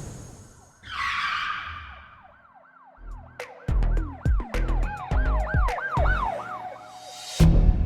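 Intro sound effect: a siren-like wail sweeping quickly up and down, about two to three times a second, with heavy bass drum hits joining about three seconds in.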